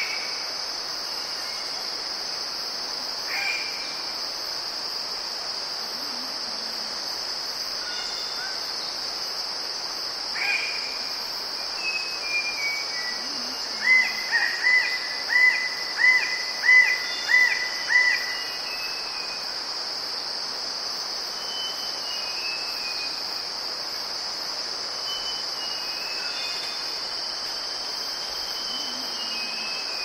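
Red bird-of-paradise calls over a steady high-pitched insect drone: a few scattered calls, then a run of about eight quick repeated calls around the middle, with fainter calls later on.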